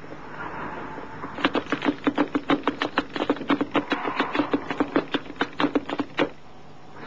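A quick run of sharp clicks or taps, about five a second, starting about a second and a half in and stopping about six seconds in.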